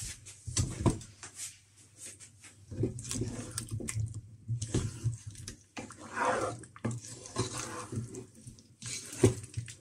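Wooden spoon stirring chunks of boiled potato through a thick creamy gravy in a stainless steel pot: irregular wet squelches and knocks of the spoon against the pot.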